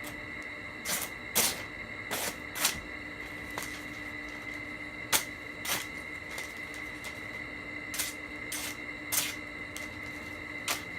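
A knife blade drawn in short, irregular strokes across a sharpening surface, about one stroke every half second to a second.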